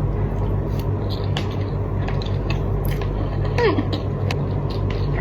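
Small scattered clicks and handling noises of food being opened and eaten, over a steady low hum.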